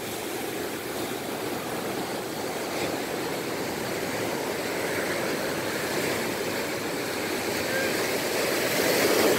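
Ocean surf breaking and washing up over a sandy beach. The steady rushing swells louder near the end.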